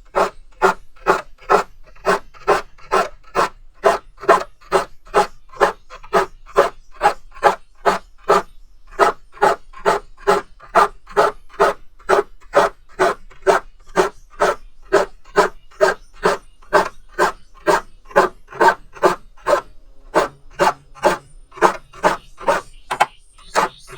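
A hand file rasping across the teeth of a crosscut handsaw, sharpening it in short, even strokes, about two a second.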